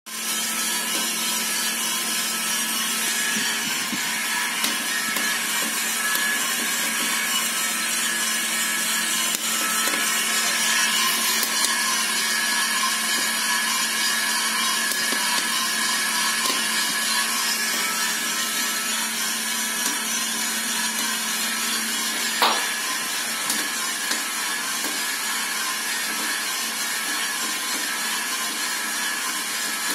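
Kaldi Wide drum coffee roaster running over a gas burner: a steady rushing noise with a low hum under it. A few scattered sharp pops, one louder about two-thirds of the way through, are the coffee beans starting first crack.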